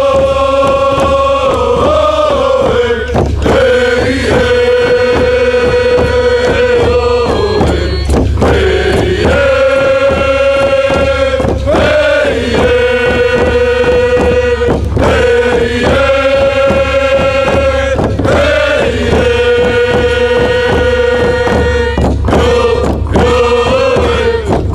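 Background music: a chanted song with long held notes in repeating phrases of about three to four seconds, over a steady low drone.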